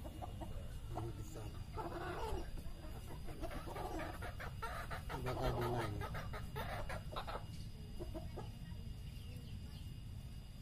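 Chickens clucking off and on in short wavering calls, with a few light clicks around the middle.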